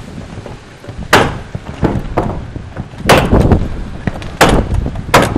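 About seven sharp, irregularly spaced bangs from work on the wooden roof cladding, over gusty wind buffeting the microphone.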